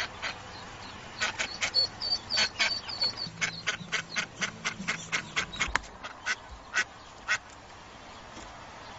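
Mallard hen quacking in a rapid series of short, loud calls, several a second, which stop about a second and a half before the end: a mother duck calling to her ducklings trapped in a storm drain.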